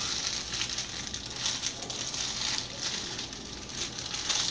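Clear plastic bag of cake mix crinkling and rustling as it is handled with both hands, with a louder crinkle near the end.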